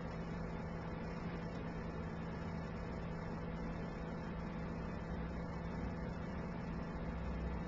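Handheld hair dryer running steadily on synthetic wig fibres: an even hum with a constant hiss of air.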